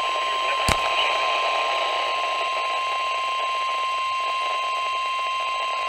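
NOAA Weather Radio warning alarm tone: a steady single 1050 Hz tone over radio static hiss, with one brief click under a second in. It is the attention signal that opens a new weather warning broadcast.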